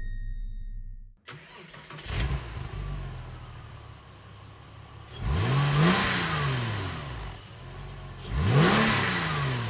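Porsche 996 Carrera flat-six through EVOX ValveTronic stainless exhaust mufflers: the starter cranks briefly and the engine catches about two seconds in, then idles. Two throttle blips follow, each rising and falling in pitch, about three seconds apart.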